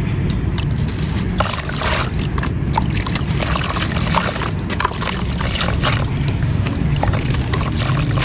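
Wet chunks of marble powder being crushed and crumbled in water: many small gritty crackles and crunches with sloshing, over a steady low rumble.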